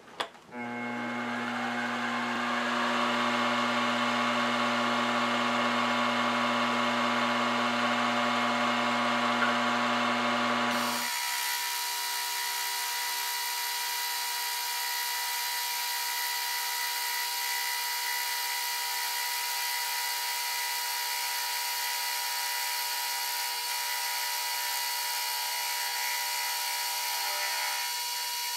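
Milling machine running with a roughing end mill skimming a face of a 5/8-inch aluminium bar, a steady machine hum and cutting noise. It starts about half a second in. About a third of the way through the deeper hum drops away suddenly, leaving a steady higher whine.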